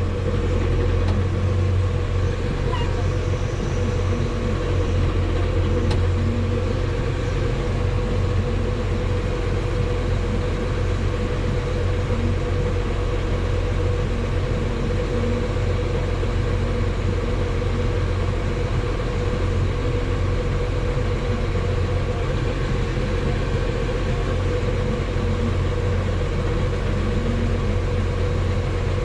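Farm tractor engine running steadily under load, a deep even drone with a constant mid-pitched hum over it.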